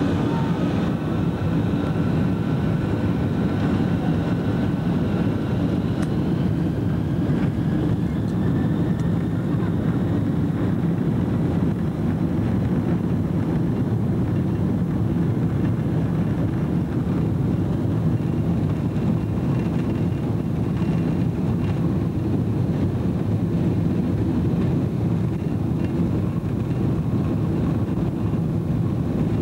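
Boeing 747 jet engines heard inside the cabin from a window seat as the airliner moves along the ground: a steady loud rumble, with a faint turbine whine that rises in pitch about six seconds in.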